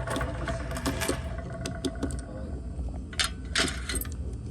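Scattered light clicks and clinks of small hard objects being handled, sharpest about three seconds in, over a steady low hum.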